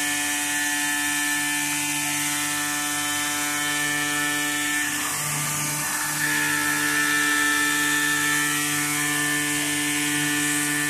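Steady mechanical hum with a high hiss from an AOKE DCZ7X flatbed CNC digital cutter running, its tone wavering briefly about five seconds in.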